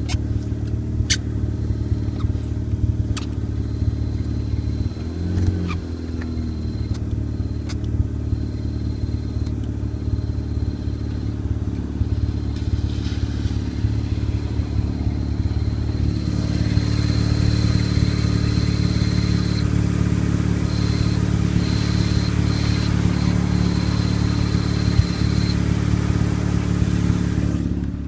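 Mazda RX-8 two-rotor rotary engine idling, with a thin high-pitched chirp from the new clutch that cuts out briefly several times in the second half as the clutch pedal is lightly tapped, then stops near the end. The owner suspects a bad clutch fork.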